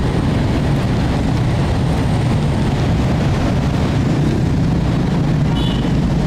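Steady low rumble of city traffic, with no single vehicle standing out.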